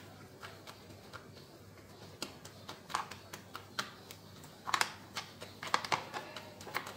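Light, irregular clicks and taps of a metal mesh sieve and a wooden spoon knocking against a metal mixing bowl as flour is sifted into cake batter and stirred in. The taps come faster and in quick clusters in the second half.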